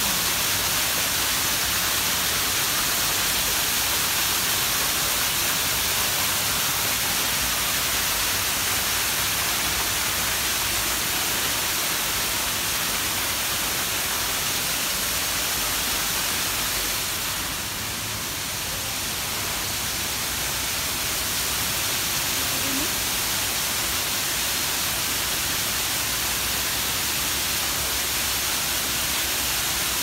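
Man-made waterfall pouring down rockwork: a steady, loud rush of falling, splashing water, briefly a little softer just past halfway.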